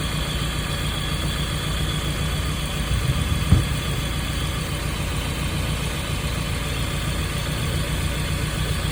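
1995 Nissan truck's 2.4-litre four-cylinder engine idling steadily and really quiet, its lifter tick gone after a Tribo-MAX oil treatment. A brief thump about three and a half seconds in.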